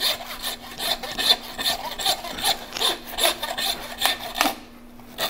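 Stainless steel meat handsaw cutting through the ball joint of a hanging beef hindquarter, rasping back and forth in quick strokes, roughly two to three a second. The sawing stops about four and a half seconds in.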